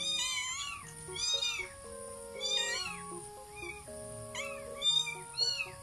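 Tabby cat meowing repeatedly, about five meows each rising and falling in pitch, over background music with long held notes.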